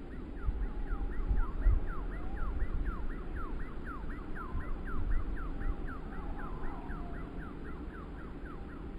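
Gusty wind buffeting the microphone, with a rapid, even series of short falling squeaky notes, about three or four a second.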